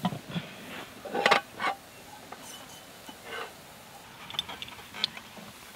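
A utensil knocking and scraping against a metal cooking pot in short, irregular clinks, the loudest cluster about a second and a half in.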